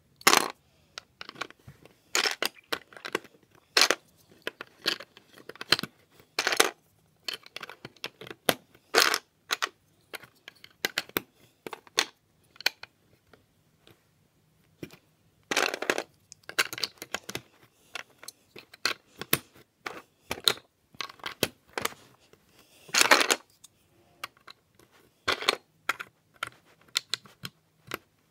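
Plastic LEGO bricks clicking and clattering as they are picked up, handled and pressed together onto a baseplate: irregular sharp clicks with a few louder rattling clusters.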